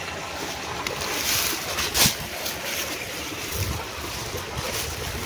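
Steady rushing noise of wind on the microphone, with a single sharp knock about two seconds in.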